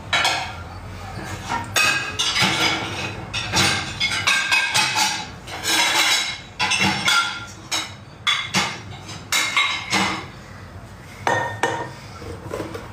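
Plates, glasses and cutlery clattering and clinking irregularly as they are pushed and packed into a dishwasher rack, with many sharp knocks, some ringing briefly.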